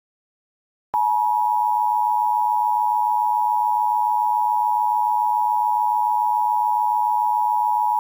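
Emergency Alert System attention signal: a steady two-tone alert tone, two pitches near 1 kHz sounded together, starting abruptly about a second in. It announces that an emergency alert message follows.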